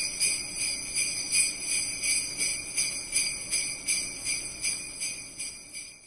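Sleigh bells jingling in a steady shaken rhythm, about three shakes a second, fading out near the end.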